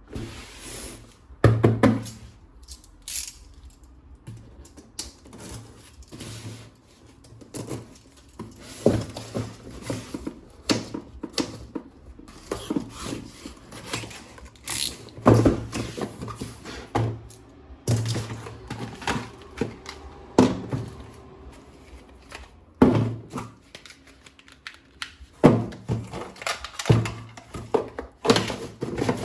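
Irregular thunks and knocks from handling a plastic toy gun and its packaging during an unboxing.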